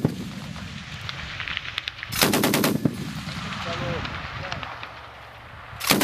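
DShK 12.7 mm heavy machine gun firing short bursts: one burst of several rapid rounds about two seconds in, and another starting near the end.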